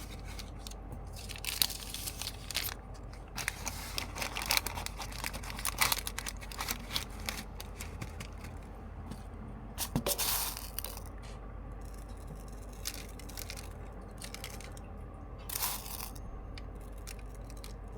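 Irregular crinkling, tearing and clicking of things being handled, thickest in the first few seconds, with a louder rustle about ten seconds in. A low steady hum runs underneath.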